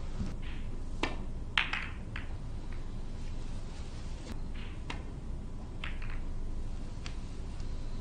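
Hushed snooker-table ambience with a scattering of sharp clicks and knocks, the loudest a crack about one and a half seconds in, as the cue ball comes off the cushions and rolls across the cloth.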